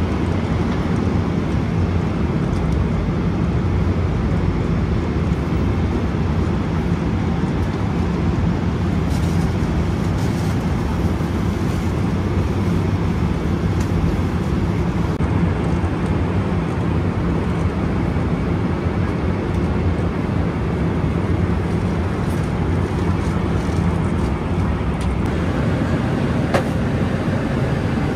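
Steady, deep cabin noise of a Boeing 777-300ER airliner in flight, with no break or change.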